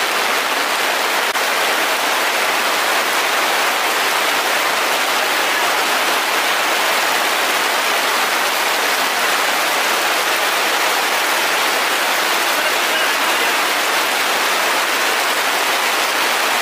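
Heavy rain pouring steadily, heard from under a tarpaulin roof, an even, unbroken hiss with no letup.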